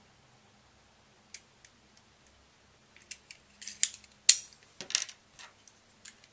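Plastic clicks and snaps of a finger-pricking lancing device being opened and its used lancet taken out. There is a cluster of short, sharp clicks in the second half, loudest about four seconds in.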